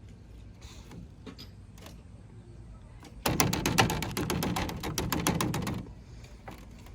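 Rapid ratcheting clicks, many to the second, starting about three seconds in and lasting about two and a half seconds, as a part is fastened tight on the front of the truck.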